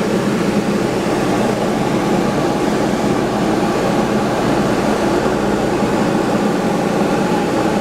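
Steady drone of a Diamond DA20-C1's four-cylinder Continental IO-240 engine and propeller, with a constant hum and rushing noise and no change in power.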